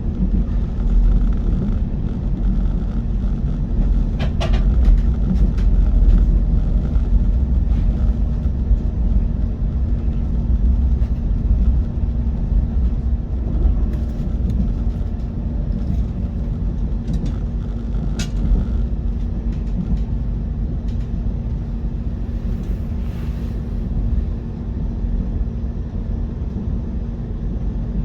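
Train running: a steady low rumble with a constant hum, and brief sharp clicks about four seconds in and again about eighteen seconds in.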